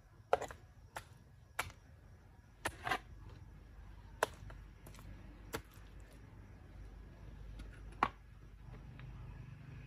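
Metal spade blade knocking and scraping against stones as plastic clay is pressed into the joints of a dry-stacked stone retaining wall: sharp, irregular clinks and knocks, about nine of them, the loudest about a third of a second in and at about eight seconds, over a low steady hum.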